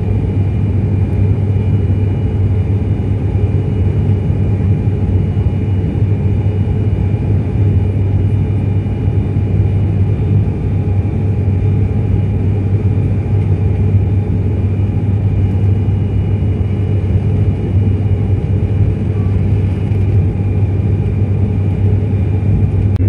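Turboprop engine and propeller of an ATR 72 heard inside the cabin in flight: a loud, steady low drone with a fainter higher whine over it, unchanging throughout.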